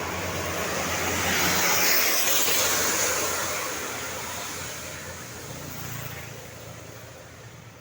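A road vehicle passing close by: engine and tyre noise swells to a peak about two seconds in, then fades steadily as it moves away.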